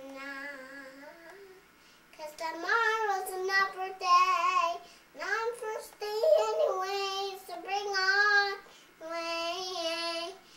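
A young girl singing unaccompanied, in sung phrases with short breaks for breath, some held notes wavering in pitch.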